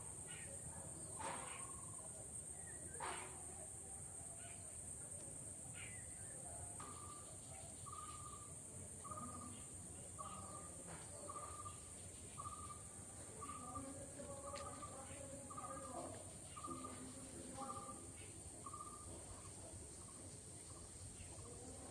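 A bird repeating one short, even note over and over, about three notes every two seconds, against a steady high hiss of outdoor background.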